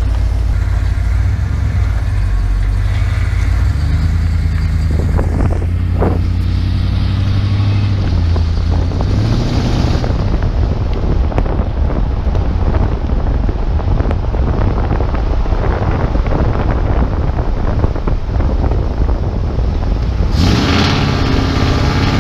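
Ford F-150's 5.0-litre V8 running as the truck drives along, heard from outside the body; the engine note steps up in pitch between about four and eight seconds in as it picks up speed. A rushing noise runs under it and swells near the end.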